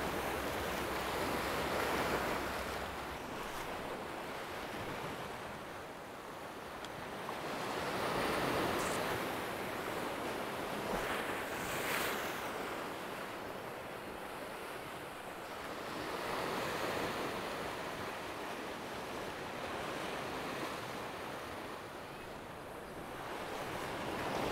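Sea swell breaking and washing against shoreline rocks, the surf surging and easing every few seconds.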